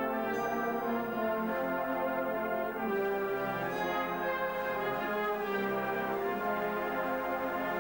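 Euphonium solo with brass band accompaniment: a slow melody of held notes over the band's sustained chords.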